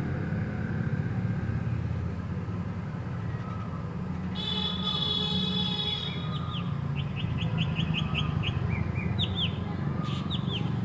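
High-pitched animal chirps over a steady low rumble: about four seconds in, a held high whistle, then a quick run of short falling chirps, about six a second, and a few more chirps near the end.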